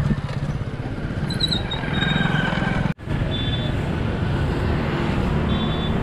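Road vehicle engines running in a steady low rumble. About three seconds in, the sound cuts out for an instant and a similar traffic rumble carries on.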